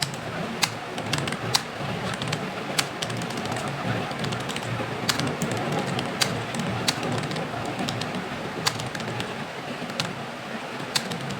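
Computer keyboard being typed on: irregular, sharp keystroke clicks, several a second, over a steady low background noise.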